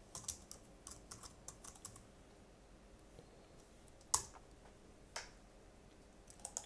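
Computer keyboard typing, faint: a quick run of keystrokes as a name is typed, then a louder single key press about four seconds in and a few isolated clicks after it.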